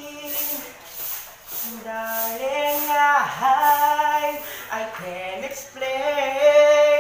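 A person singing a slow melody with long held notes over music with a light steady beat.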